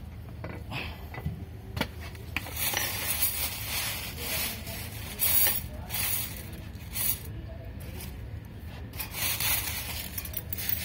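Plastic bag rustling around a bundle of metal welding rods being handled, in repeated scratchy bursts, after a few sharp clicks near the start, over a faint low steady hum.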